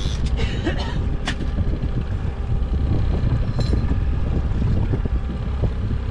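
Outboard-powered fishing boat under way on open water: a steady low rumble of motor, hull and water, with wind buffeting the microphone. A few sharp clicks come in the first second or so.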